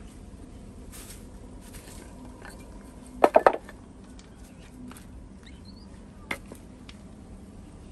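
A quick run of three or four sharp knocks a little past three seconds in, then one more lighter knock past six seconds, among a few faint ticks.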